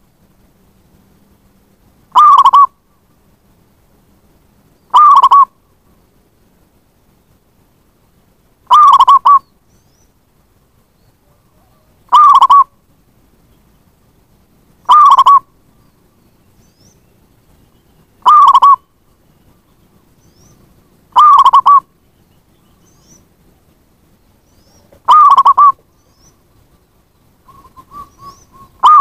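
Zebra dove cooing: a short rippling coo of about half a second, repeated eight times at intervals of three to four seconds, loud and close. It is the decoy's call, used to lure wild zebra doves.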